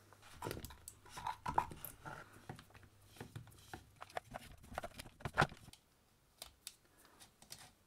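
Small irregular clicks and scraping as plastic and metal parts are fitted by hand into a rotary hammer's motor housing during reassembly, with a sharper click about five and a half seconds in.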